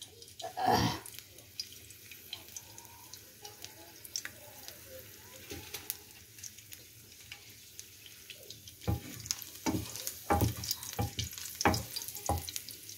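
Sliced garlic frying gently in oil in a nonstick pan, with small scattered crackles and a brief louder noise just under a second in. From about nine seconds in, a wooden spatula stirs it, knocking and scraping against the pan in a run of strokes.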